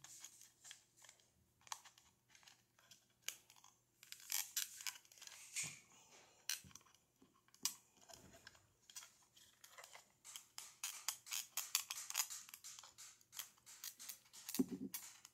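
Plastic body shell of an Athearn HO scale caboose being worked off its chassis clips by hand: a run of faint plastic clicks, creaks and scratches.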